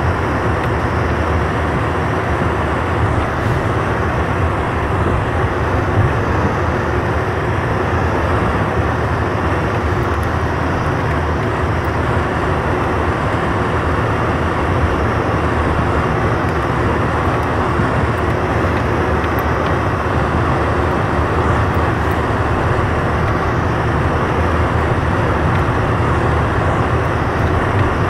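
Vehicle driving over a snow-covered dirt road: a steady, unbroken rumble of engine and tyres.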